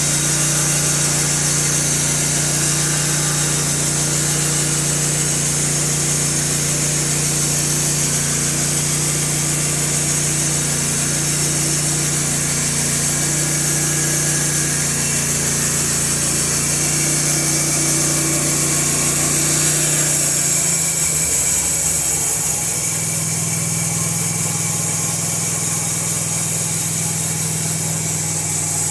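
Engine of a Norwood LM2000 portable band sawmill running steadily, with a high hiss over its hum. A little after twenty seconds in the sound shifts and the engine runs on more evenly.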